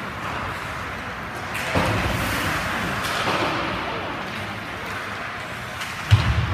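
Ice hockey game sound in an arena: a steady wash of play on the ice with faint shouting voices, and one sharp thump near the end.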